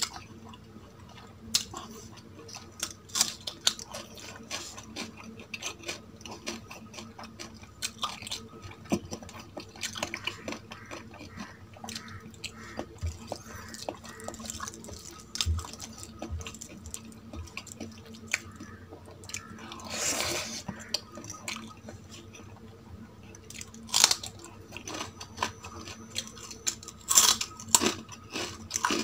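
A person eating close to the microphone: chewing, with many short, sharp mouth clicks and smacks, and one longer breathy noise about twenty seconds in.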